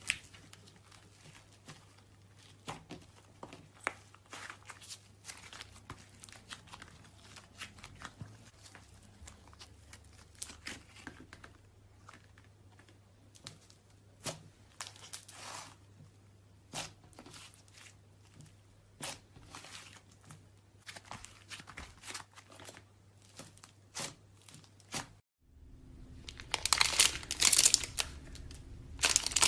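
Slime being squeezed and stretched by hand, giving off irregular wet clicks and pops. About 25 seconds in there is a short break, and then louder, denser crackling takes over.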